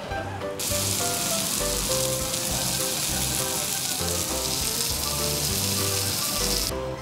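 Meat and offal sizzling on the hot metal grill plate of a combined grill-and-hotpot, a steady hiss that starts suddenly about half a second in and cuts off just before the end, over background music.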